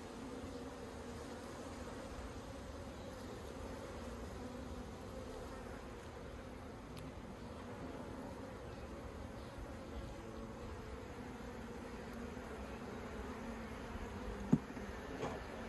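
Honeybees humming steadily from an open hive, a dense buzz with a low droning pitch. A single sharp click comes near the end.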